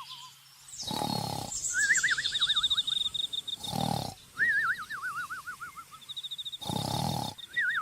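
Three deep animal roars, about three seconds apart, with warbling, wavering whistled calls between them.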